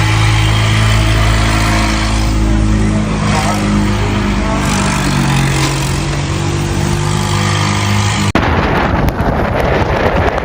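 A motor vehicle engine running, its pitch shifting slowly. About eight seconds in it cuts off abruptly to wind rumbling on the microphone.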